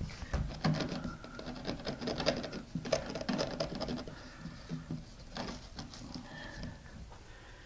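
Thin-set mortar being spread thick with a hand tool: a run of short scraping strokes with small taps and knocks.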